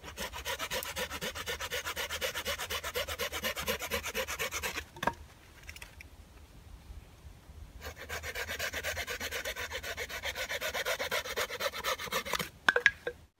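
A knife blade scraping fast along a wet wooden stick, a rapid rasping in two long bouts with a short break about five seconds in, and a few sharp clicks near the end.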